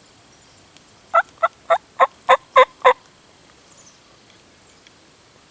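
A turkey yelping: a run of seven evenly spaced, loud yelps, about three a second, starting about a second in and lasting about two seconds.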